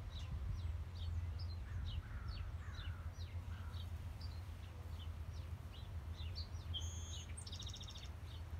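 Small birds chirping, with many short, high, falling chirps throughout and a rapid trill near the end, over a steady low rumble of outdoor background noise.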